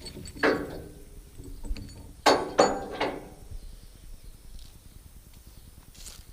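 Steel log chains and binders clanking against metal as a log load is chained down, three sharp ringing clanks, the last two close together about two seconds in.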